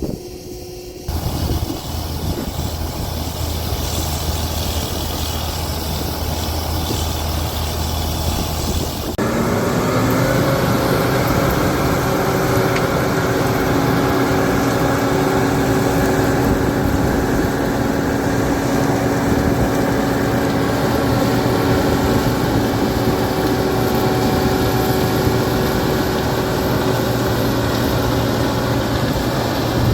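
Heavy diesel engine running steadily with a low drone. About nine seconds in, the sound jumps to a louder, fuller engine running with steady whining tones, which holds to the end.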